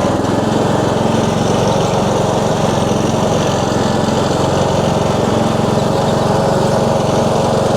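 Husqvarna TS142 riding lawn mower's engine running steadily at an even throttle, with no change in speed.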